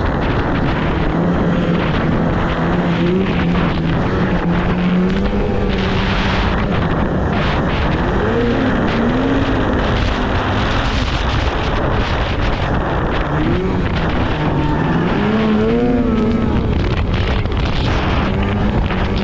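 Two-stroke snowmobile engine running hard, its pitch rising and falling again and again as the throttle is worked, with wind noise on the microphone.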